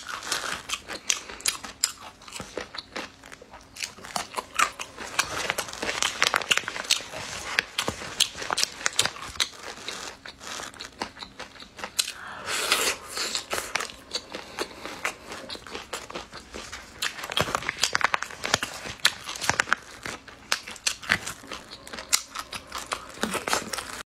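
Close-miked eating: a thin plastic food bag crinkling as a gloved hand handles it, with biting and chewing of food in chilli oil, heard as many short clicks and crackles.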